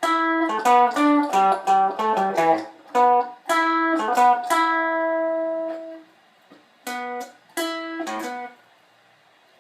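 Strat-style electric guitar with a clean tone playing single picked notes: a quick run of notes, then a few notes held for about a second each. After a short pause, three more short notes ring out and fade.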